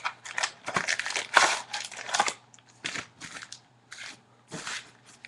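A trading card box's packaging being torn and opened by hand: crinkling and tearing of wrapper and cardboard, busy for the first couple of seconds, then a few scattered crackles.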